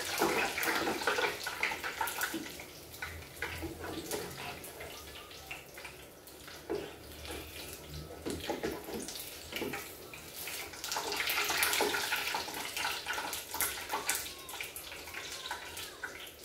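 Mikate dough balls deep-frying in hot oil in an electric deep fryer, the oil sizzling, with a slotted metal skimmer stirring and clicking against them and the basket.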